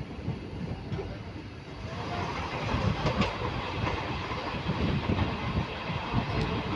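Passenger train coach running at speed, heard from its open door: wheels clattering over the rail joints with a steady rushing noise, louder from about two seconds in.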